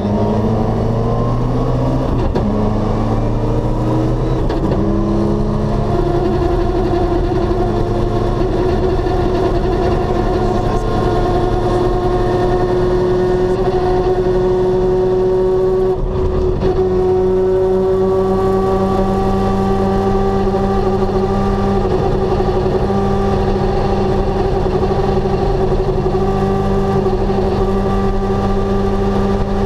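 Rally car engine heard from inside the cabin, its note rising through the first few seconds as the car pulls away, then running at steady cruising revs. There is a short break in the note about halfway through, then it runs steady again with the pitch creeping up slowly.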